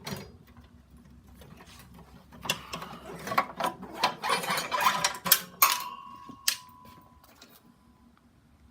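Mower throttle cable being worked through its mount by hand: a run of small metallic clicks and rattles, then a sharp clink with a single ringing tone that fades over about two seconds, and a couple more clicks.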